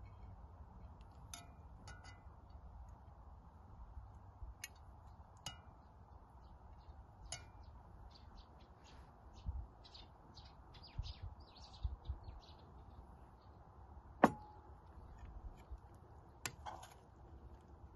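Metal serving utensils clinking now and then against plates and a pot as food is served, with one sharp, ringing clink about two-thirds of the way through. Small birds chirp lightly over a low, steady background rumble.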